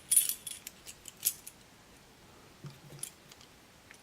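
Homemade pick, bent from a bulldog clip, scraping and clicking against the metal wards inside a Master Lock warded padlock as it is worked around the keyway. The sharpest clicks come at the start and about a second in, followed by fainter ticks.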